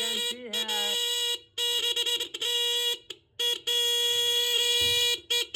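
Repaired motorcycle electric horn sounding a steady single-pitched tone in three long blasts broken by short gaps, with a few quick taps near the end.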